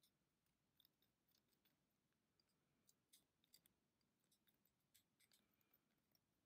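Faint, irregular ticks and scrapes of a thin metal pick working along the inner threads of a 3D-printed plastic nut.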